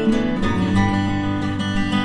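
Background music: an acoustic guitar playing chords.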